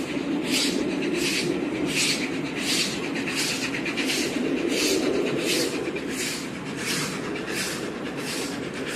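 Train running at speed, heard from inside a passenger coach behind a steam locomotive: a steady rumble with a regular hissing beat about three times every two seconds.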